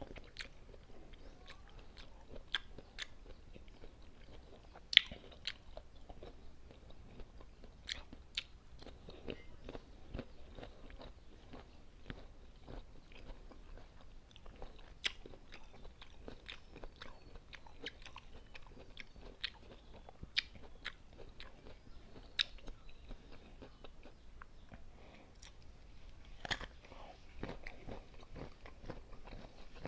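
Close-miked eating of crunchy unripe green mango with sautéed shrimp paste: crisp bites and steady chewing crunches, with a few sharper, louder bites scattered through.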